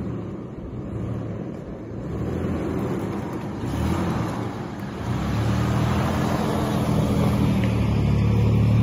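Four-wheel-drive ute's engine running as it drives slowly along a dirt track, growing steadily louder as it approaches and passes close by near the end.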